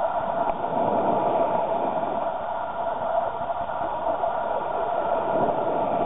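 Calm sea washing at the shore: a steady, even rush of small waves.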